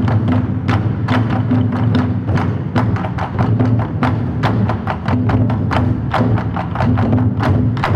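Large Chinese barrel drums beaten with wooden sticks by a drum troupe, a fast run of sharp stick strikes over a deep, booming drum tone.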